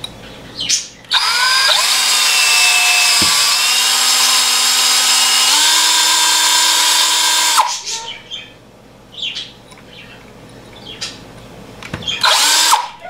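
Cordless drill running for about six seconds as it bores into the back of a brass bullet; its whine steps up in pitch a little past halfway. It runs again briefly near the end. The bit is one the user calls no good, cutting slowly into the metal.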